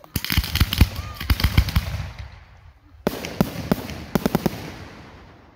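Aerial fireworks exploding in two quick volleys of sharp bangs. The first starts right away and fades out by about two seconds; the second breaks out about three seconds in and fades likewise.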